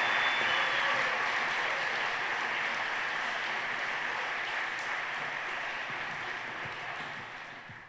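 Audience applauding, the applause slowly dying down and then fading out near the end.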